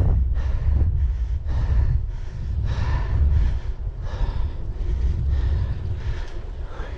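Wind buffeting the microphone as a bicycle is ridden at speed, a steady low rumble, with the rider's hard breathing coming in regular breaths about once a second.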